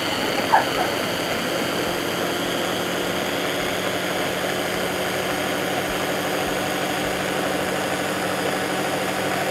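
Electric hand blender on its chopper bowl running at one steady speed, blending a thick avocado, buttermilk and herb dressing until smooth.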